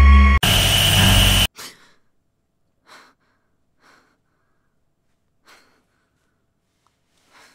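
A loud droning horror-score chord cuts into a harsh burst of hiss-like noise about half a second in, which stops abruptly a second later. Then it is nearly silent apart from a woman's soft breaths and sighs, about five of them, as she lies awake in bed.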